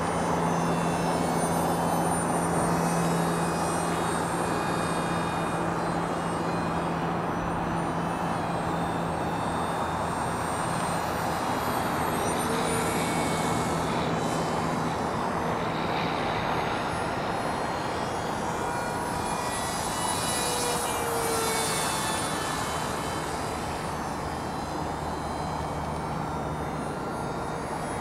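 Electric motor and pusher propeller of a small foam RC parkjet in flight: a steady whirring drone with a thin high whine. The low hum fades about halfway through and comes back near the end.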